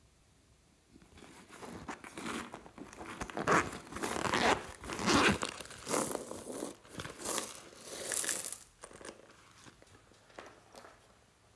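The zipper of a small fabric pouch being pulled open in several rasping strokes, mixed with the rustle of the pouch's fabric as it is handled.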